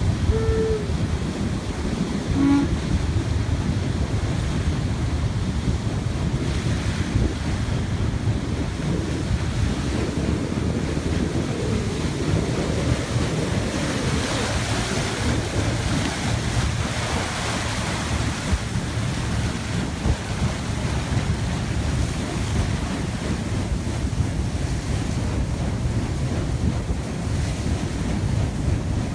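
Wind buffeting the microphone over the steady rush of lake water churned up by a moving boat.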